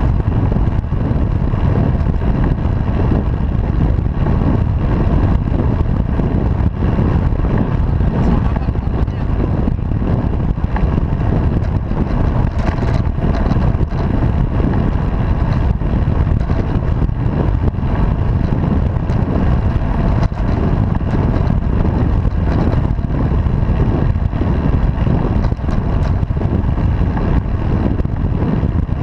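Steady low rumble of wind buffeting the microphone of a camera mounted on a road bicycle in motion, mixed with road noise.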